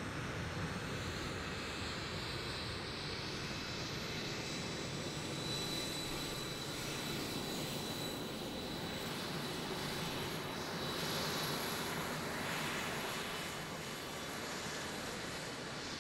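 Jet aircraft engines running: a broad rush of engine noise with a thin, steady high whine, swelling about eleven seconds in.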